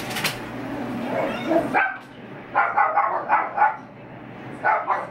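Dogs barking in quick runs of short, sharp barks: about six in a rapid string a little over halfway through, then a couple more near the end, over steady background noise.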